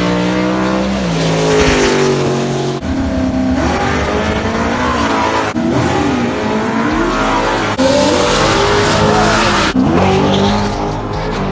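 Race car engines running and revving, in several short clips joined by abrupt cuts. The pitch rises and falls within each clip.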